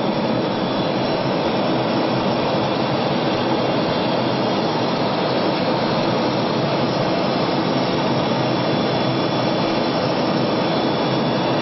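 Steady jet engine and airflow noise heard inside an airliner cabin, shortly after takeoff.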